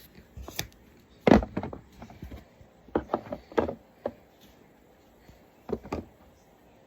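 Skincare bottles and jars knocking and clattering as they are set back into a mini fridge: about eight separate knocks, the loudest about a second in, a cluster around the middle and two more near the end.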